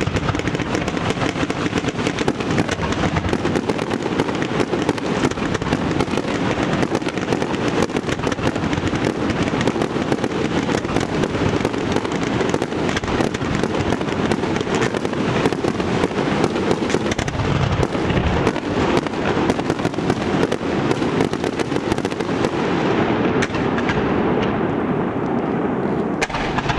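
Fireworks display going off in a dense, unbroken barrage of rapid crackles and bangs, thinning toward the end.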